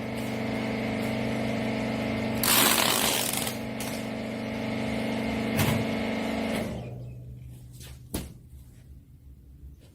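Hydraulic wiper baling press running with a steady motor-and-pump hum, with a burst of hiss about two and a half seconds in. The hum dies away about seven seconds in, leaving a few sharp clicks and knocks.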